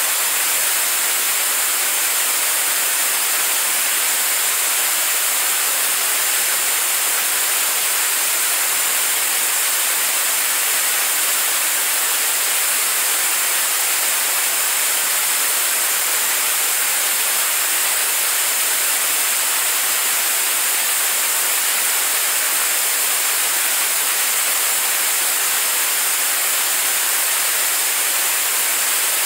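Staged-combustion kerosene–liquid-oxygen rocket engine firing at steady state during a long-duration test burn: a loud, constant, unbroken rushing hiss, heavy in the highs with almost no deep rumble.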